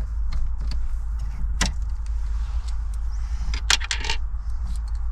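Handling noise as screws are undone behind a car's dashboard: scattered sharp clicks and small metallic clinks, the two loudest about one and a half and three and a half seconds in, over a steady low rumble.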